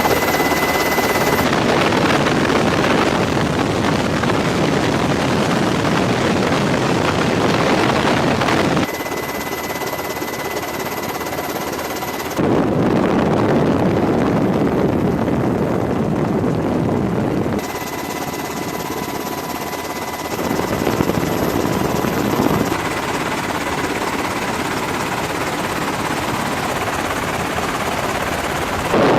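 Steady aircraft engine noise in a string of cut-together clips, the level and tone changing abruptly every few seconds.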